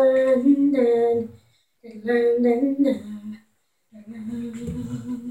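A child humming a tune in three held phrases, with short breaks between them.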